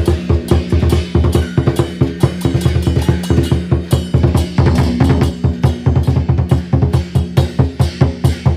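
Fast, steady drumming with several strikes a second: the percussion accompanying a Chinese dragon dance.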